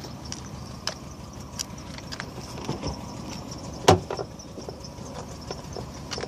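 Things being handled and knocked about: scattered light clicks and knocks, with one much louder knock about four seconds in.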